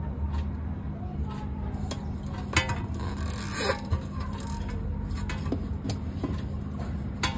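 Hands handling wires and a plastic cable tie inside a rice cooker housing, giving small scattered clicks and taps. About three and a half seconds in there is a short zip as the cable tie is pulled tight around the wire bundle.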